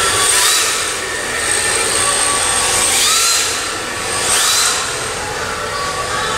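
Radio-controlled drift cars with electric motors running on a track: motor whine that rises in pitch with the throttle, over the steady hiss of hard drift tyres sliding. There are three louder surges, about half a second, three seconds and four and a half seconds in.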